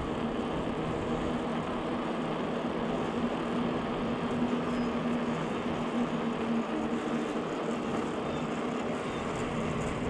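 Steady rolling noise of a bicycle ride: tyres on the trail and wind on the microphone, with a faint steady hum underneath.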